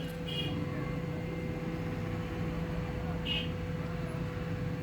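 Hot air rework gun blowing steadily while desoldering a phone's charging jack, a continuous low hum with a fixed higher tone.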